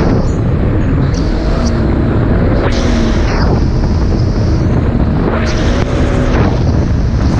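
Supercharged four-stroke engine of a Yamaha GP1800R jet ski running underway at cruising speed, its note wavering slightly, over the rush of water and wind buffeting the microphone.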